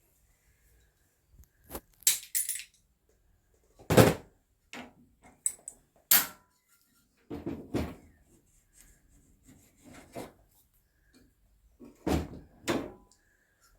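Irregular metallic knocks, clinks and taps of hand tools and loose parts as a suspension pin is worked out of a racing car's front hub. The loudest knock comes about 4 seconds in.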